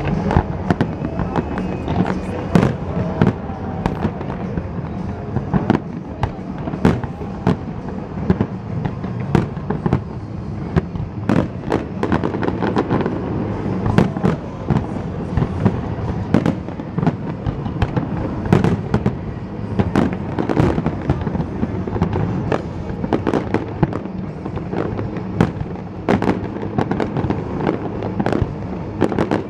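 Fireworks display: aerial shells bursting in rapid succession, many sharp bangs a second throughout, over a steady low rumble.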